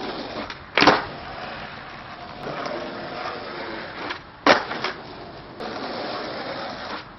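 Skateboard wheels rolling on asphalt, with a loud clack of the board striking the ground about a second in and another about four and a half seconds in, followed by two quick smaller clacks, as flatground tricks are popped and landed.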